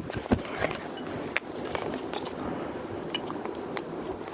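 Handling noise from the phone being picked up and moved about: scattered small clicks and rubs over a steady background hum.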